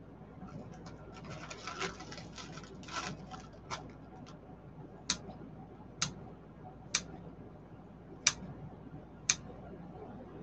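Kitchen scissors snipping through pepperoni slices: first some small clicks and rustling as the slices are handled, then a sharp snip roughly once a second.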